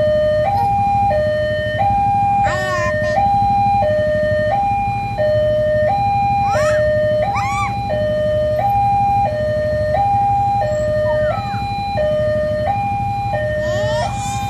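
Railway level-crossing warning alarm sounding, a steady electronic two-tone signal alternating between a higher and a lower note about every three-quarters of a second. It warns that a train is approaching the crossing.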